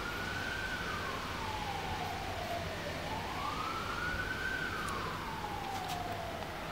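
Emergency vehicle siren wailing, its pitch sweeping slowly up and down about once every four seconds, over a steady background hiss.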